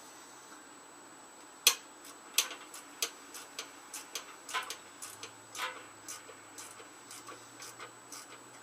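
Hand ratchet wrench clicking as it is worked back and forth, a run of sharp irregular clicks about three a second that starts nearly two seconds in, the first click the loudest.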